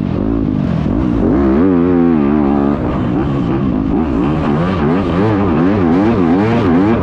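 Dirt bike engine heard from the bike itself, revving up and down again and again as the rider works the throttle around the supercross track. About a third of the way in the revs dip briefly, then rise and fall more quickly, about one to two times a second, through the rhythm section.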